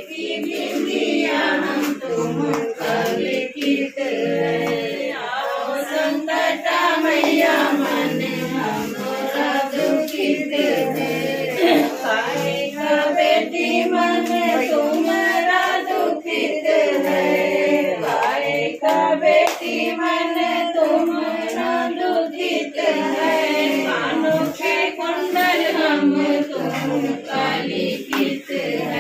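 A group of women singing a devotional puja song together, continuously, with several voices at once.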